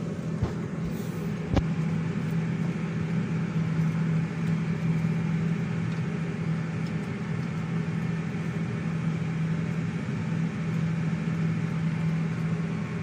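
New Holland T7.260 tractor's six-cylinder diesel engine running steadily under load while pulling a plough, heard from inside the closed cab as a constant low drone. A single sharp click comes about a second and a half in.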